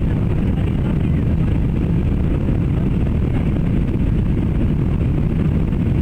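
Steady drone of an airplane heard from inside the cabin: an even, unbroken engine and airflow rumble.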